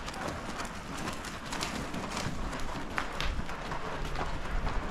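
Hoofbeats of ridden horses walking on the soft dirt footing of an indoor arena, scattered short thuds and clicks over a steady low rumble.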